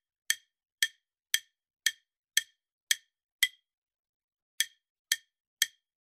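Countdown timer sound effect: sharp, clock-like ticks about two a second, with a pause of about a second near the end before three more ticks.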